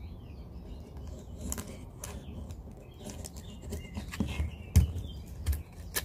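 Handling noise of a Leatherman Signal multitool: scattered light clicks and taps over a low rumble, with one louder thump just under five seconds in.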